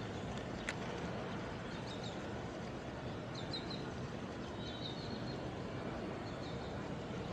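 Steady outdoor background noise with faint, short, high bird chirps a few times, and a single sharp click about a second in.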